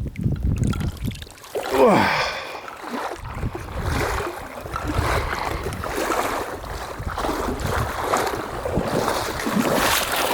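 Wind buffeting the microphone over sloshing, rustling footsteps wading through shallow pond water, with irregular small splashes and scrapes. About two seconds in, a short pitched sound falls steeply in pitch.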